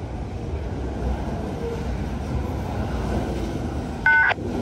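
Freight train cars rolling by on the rails, a steady low rumble. About four seconds in comes one short, loud, high beep with several tones at once.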